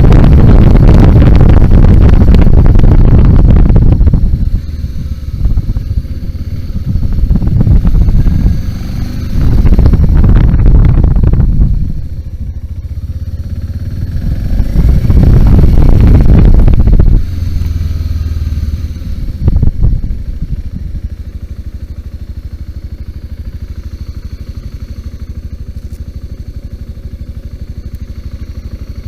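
BMW G 650 GS single-cylinder motorcycle engine riding off-road, with heavy wind noise on the microphone for the first few seconds. The engine revs up and falls back several times, gives one short blip of throttle, then settles to a steady idle.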